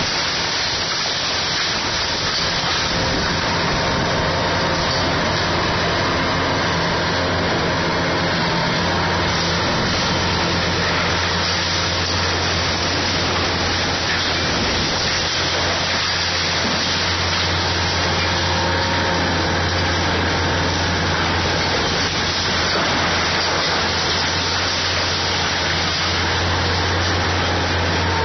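Kobelco SK500 hydraulic excavator running steadily: a low engine hum under a constant noisy hiss, the hum growing stronger about a third of the way in.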